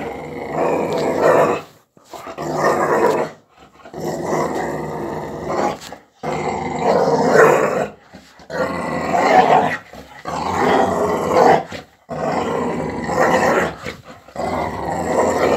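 A dog growling in play while tugging at a toy held by a person. It is a run of about seven long, rough growls, each a second or two, with short breaths between.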